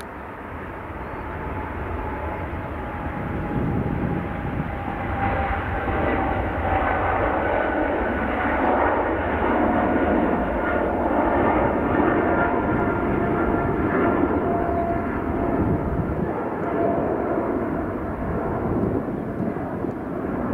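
Air France Boeing 777-300ER's twin GE90-115B turbofans at takeoff thrust as the airliner rolls, lifts off and climbs away: a loud, dense jet noise that builds over the first few seconds, with a thin engine whine slowly falling in pitch.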